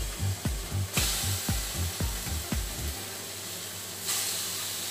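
Raw chicken fillets dropped into hot oil in a frying pan and sizzling, the sizzle swelling about a second in and again about four seconds in as more fillets go in. Background music with a steady beat runs under it for the first three seconds.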